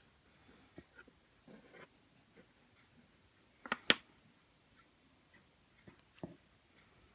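Scattered small clicks and taps from handling Play-Doh and its plastic modelling tools, with a sharp double click about four seconds in and another click a couple of seconds later.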